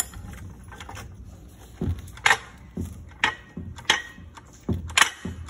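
Hydraulic floor jack being pumped by hand to lift the car: a series of short clunking strokes, roughly two a second, starting about two seconds in.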